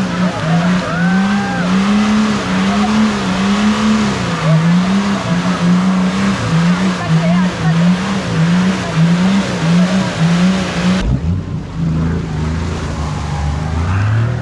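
4x4 engine working hard off-road, its note rising and falling about one and a half times a second. At a cut about eleven seconds in it drops to a lower, steadier engine drone that climbs near the end.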